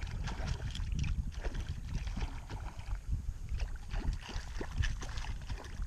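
Water splashing and lapping against a kayak, with irregular small clicks and knocks and a steady wind rumble on the microphone.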